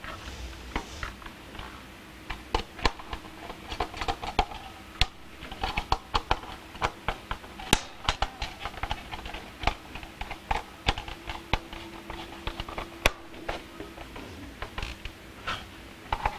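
Irregular clicks, taps and light creaks of a hot tub's plastic control panel and bezel being handled and screwed back into place, with a faint steady hum in the middle part.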